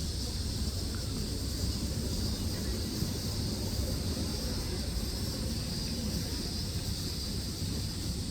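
Outdoor ambience at a football match: a steady low rumble with a constant high hiss, and faint distant voices of players calling across the pitch.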